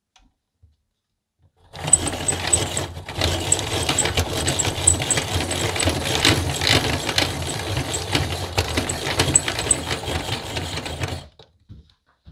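Hand-crank pencil sharpener (APSCO "Dandy") being cranked, its rotating cutters shaving a wooden pencil with a steady grinding and fine clicking. It starts about two seconds in, breaks briefly a second later, and stops about a second before the end.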